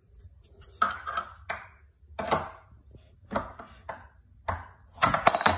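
Metal furniture hardware and tools clinking as they are handled while a bed frame is being assembled: a series of sharp, irregularly spaced metallic clicks with a quick run of them near the end.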